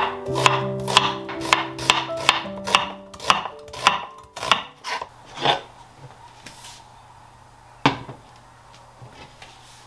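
Chef's knife slicing an onion on a wooden cutting board: steady knocks of the blade on the board, about two a second, stopping about halfway through. A single sharp knock follows a couple of seconds later.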